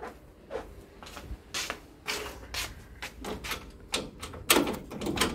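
A string of sharp clicks and knocks from a metal-framed security screen door being unlocked and opened: a key turning in its lock and the lever handle and latch clacking and rattling, with the loudest clatter near the end.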